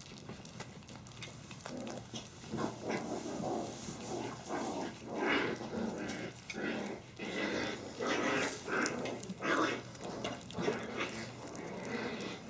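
A litter of Havanese puppies eating soft food together from a stainless steel feeding pan: an irregular run of mouth noises and small puppy sounds, several a second, growing louder about two seconds in.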